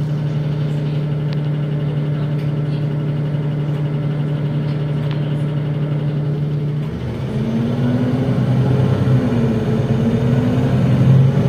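NefAZ 5299 city bus engine heard from inside the passenger cabin as the bus drives, running at a steady note. About seven seconds in, the note changes, grows louder and wavers up and down.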